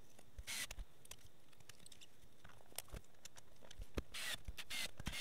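A screwdriver driving screws into the plastic case of a Fluke 73 multimeter during reassembly: faint scattered clicks and a few short scratchy rasps, the clearest about half a second in and around four seconds in.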